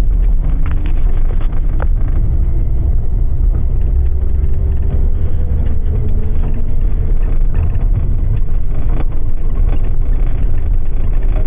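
Steady low rumble of a bus driving at highway speed, heard from inside the cabin, with a faint wavering whine and a few short rattles.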